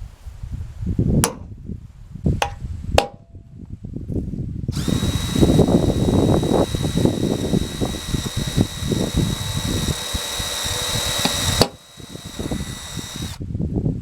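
A few sharp clicks, then a power drill running at a steady high whine for about seven seconds, pre-drilling small pilot holes in sheet-metal roofing panels. It stops, and a fainter high hiss carries on for a moment, over a continual low rumble.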